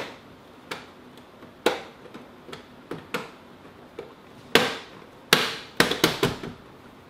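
Plastic clicks and snaps from the electrical cover and hinged front panel of a Cooper & Hunter mini-split indoor wall unit being pressed into place. Single clicks come about once a second at first, then a quick run of louder snaps about five to six seconds in.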